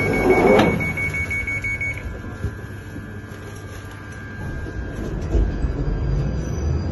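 London Underground 1995 Stock train's door-closing warning beeping, a steady high-pitched tone that stops about two seconds in, with a loud clatter about half a second in as the doors close. The train's low rumble then builds near the end as it starts to pull away.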